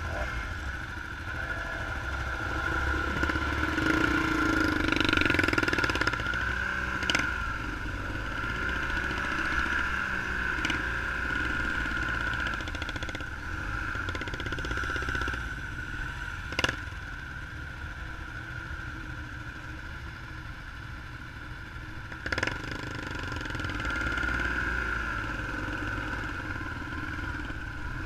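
An engine running steadily, its loudness swelling and fading, with a few sharp clacks scattered through.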